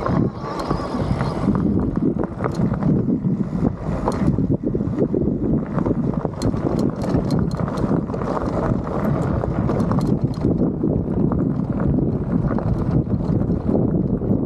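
Electric mountain bike rolling down a rocky trail: tyres running over loose rocks, the bike rattling and knocking over the bumps, with wind on the microphone.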